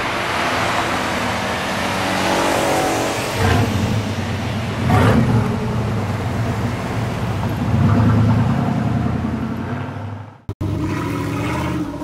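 1995 Chevy Van's V8 engine and exhaust as the van drives along the street, the engine note swelling several times as it accelerates. The sound drops out suddenly for a moment about ten seconds in.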